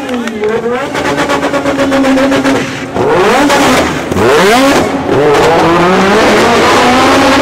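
Sports car engines revving hard in a tunnel: a steady engine note, then several quick rising revs a few seconds in, followed by a loud sustained run at high revs.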